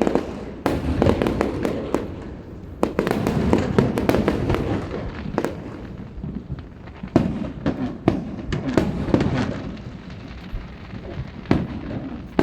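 Fireworks display: many sharp bangs from bursting shells in quick clusters, with crackling and low rumble between them; one of the loudest bangs comes about seven seconds in.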